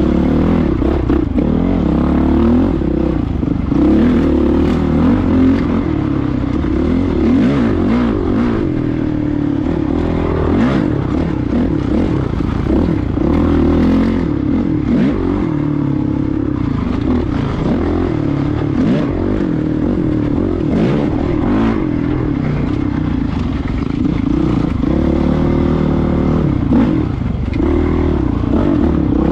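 Dirt bike engine running over rough trail, its pitch rising and falling with the throttle, with frequent short clattering knocks from the bike over rocks and dirt.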